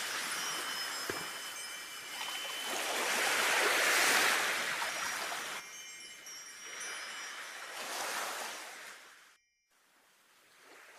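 Sea waves washing in, swelling to a peak about four seconds in and then ebbing, with wind chimes tinkling over them. Near the end the sound cuts out for a moment and comes back quieter.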